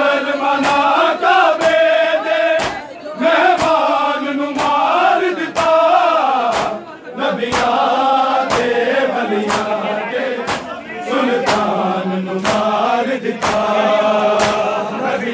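A crowd of men chanting a Punjabi noha (Shia lament) in chorus, with hands slapping chests in unison as matam: a sharp communal slap about every two-thirds of a second, keeping the beat of the chant.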